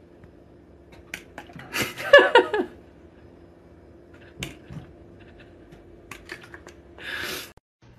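Plastic trigger spray bottle spritzing water: one short squirt about two seconds in, followed at once by a loud, short falling cry, and a second half-second squirt near the end. A few sharp clicks fall between.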